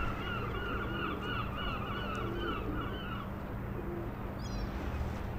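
A gull calling in a rapid series of short, even notes, about three a second, that stops about three seconds in, over a steady low rumble.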